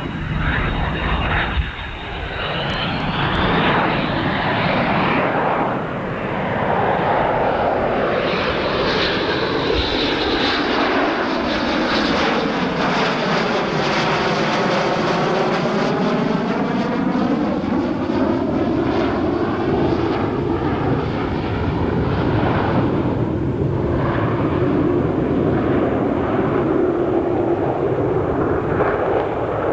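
Saab JA 37 Viggen's afterburning Volvo RM8B turbofan running loud as the jet makes a low pass. A sweeping, phasing change of tone comes about halfway through as it goes by, and the roar carries on as it climbs away with the afterburner lit.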